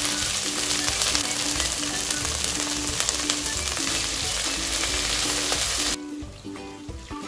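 Fiddlehead fern greens (dhekia saag) frying in hot pork fat in a pan, with a steady crackling sizzle as they are stirred with tongs. About six seconds in, the sizzle cuts off suddenly as water is poured into the pan.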